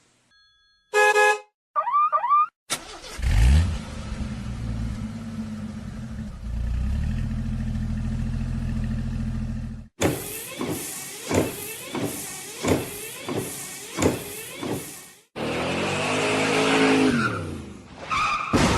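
A run of separate synthetic sound effects for radio jingles and laser effects: a short horn-like blast about a second in, quick gliding chirps, a steady low drone for several seconds, then about seven evenly spaced sweeping zaps and a long falling sweep near the end.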